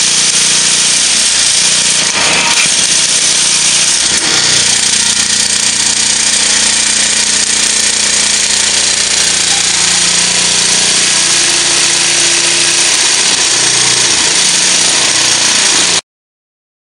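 Concrete block-making machine vibrating its steel mould to compact concrete into six 5-inch hollow blocks: a loud, steady mechanical din with a low hum. It stops abruptly near the end.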